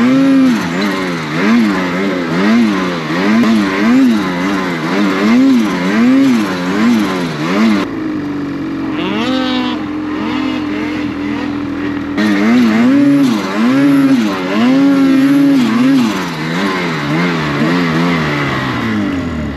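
Snowmobile engine revved up and down in quick repeated throttle blips, a little over one a second, as the sled works through deep powder snow. Around the middle it holds a steadier drone while a second snowmobile revs up sharply, then the blipping resumes.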